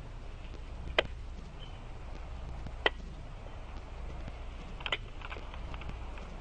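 Low steady hum with sharp, short clicks: one about a second in, one near three seconds, and a small cluster near five seconds.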